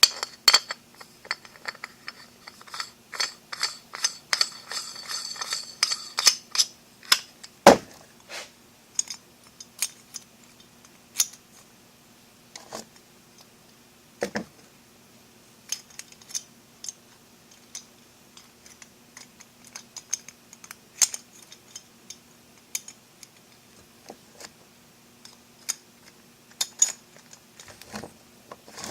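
Metal lock parts being handled: scattered sharp clicks, clinks and taps, with a dense jangling rattle over the first six seconds and a few louder knocks around 8 and 14 seconds in. A faint steady hum runs underneath.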